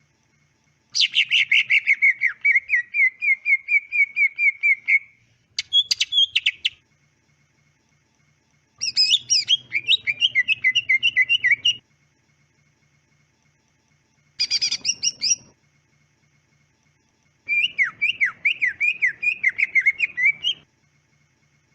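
Cucak ijo (green leafbird) singing in five phrases of quick, repeated chirping notes, several a second, mostly around one pitch with sharper higher notes mixed in, separated by short pauses.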